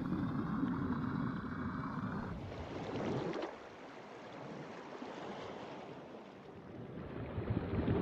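Water rushing and splashing around a small submersible as it moves through the water and breaks the surface. The wash drops away about three and a half seconds in and swells again near the end.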